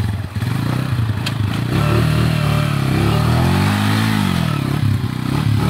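Rusi motorcycle engine running and being revved to drive the bike out of deep mud. The revs rise to a peak about four seconds in, then drop back.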